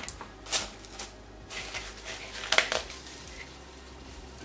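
A glass bowl of cut sweet potato being handled and moved: a few short knocks and rustles, the loudest about two and a half seconds in.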